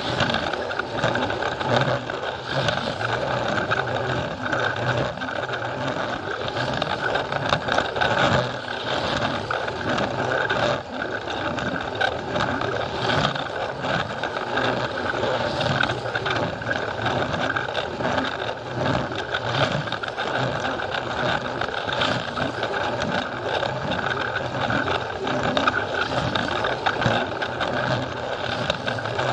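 Battery-powered Plarail toy train running on plastic track: a steady whine from its small electric motor and gears, with constant small clicking and rattling as it rolls over the track.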